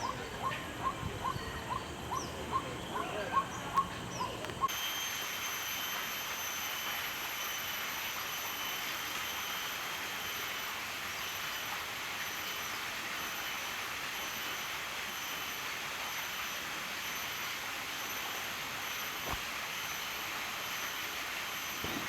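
A bird calling a quick series of short sharp notes, about three a second. About five seconds in it cuts to a steady outdoor hiss with thin, high, constant tones running through it.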